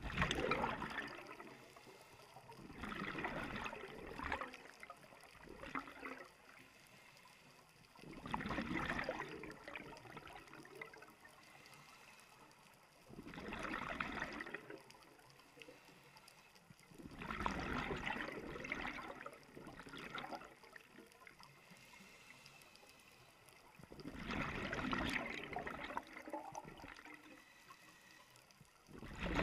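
Underwater bubbling of a scuba diver exhaling through a regulator: a burst of gurgling exhaust bubbles every few seconds, each lasting a second or two, with a quiet hiss between breaths.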